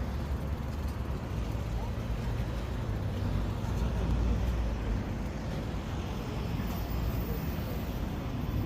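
Steady road-traffic rumble from passing cars, swelling slightly about halfway through, with indistinct voices of passers-by underneath.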